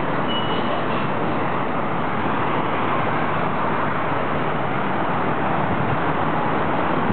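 Steady road traffic noise: an even, continuous hum of car engines and tyres, with a brief high squeak about half a second in.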